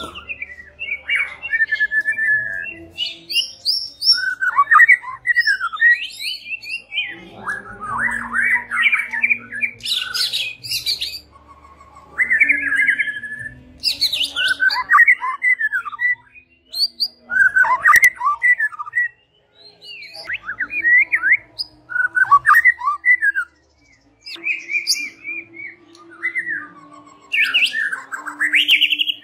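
White-rumped shama singing loudly, a varied stream of whistled and chattering phrases of a second or two each, with short breaks between them.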